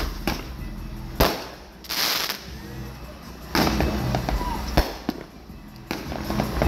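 Fireworks going off: a series of sharp bangs and crackling, with a longer hissing burst about two seconds in.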